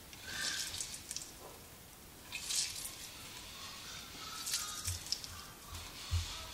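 Limes pressed in a hand-held squeezer, the juice spattering into an empty glass pitcher in three short spurts about two seconds apart, with a low knock near the end.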